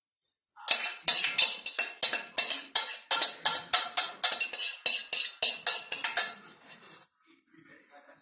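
A metal spoon scraping and clinking against the inside of a stainless steel saucepan, about three strokes a second, as the last of a thick sugar syrup is scraped out. It stops about seven seconds in.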